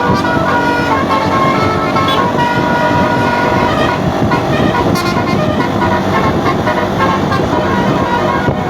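Bus telolet horn, a multi-trumpet basuri horn set, playing a long melody of changing notes without a break.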